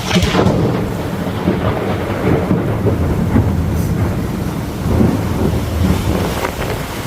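A close thunderclap: a sharp crack at the start, then rumbling thunder that rolls on for several seconds over steady rain.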